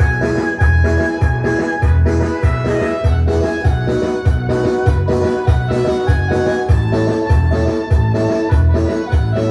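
Dance music played live on an electronic keyboard: low bass notes alternate with off-beat chords about twice a second under a melody of held notes.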